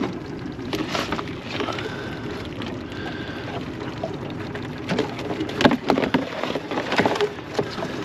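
Scattered clicks, knocks and rustling as a mud crab with a caught flipper is worked free of a crab pot's mesh, over a steady wash of water and boat noise. The knocks come thicker and louder from about five seconds in.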